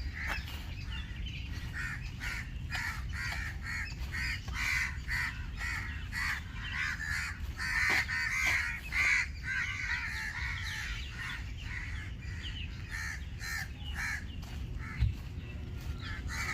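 A group of crows cawing over and over, many short harsh calls overlapping, busiest about halfway through. A single short thump about fifteen seconds in.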